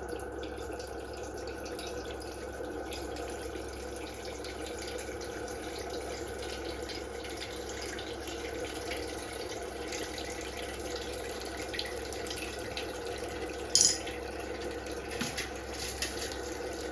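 Gasoline-thinned crankcase fluid from a 208cc snowblower engine draining in a steady trickling stream into a drain pan. The fluid is mostly gasoline that leaked into the crankcase. A brief clink sounds about fourteen seconds in.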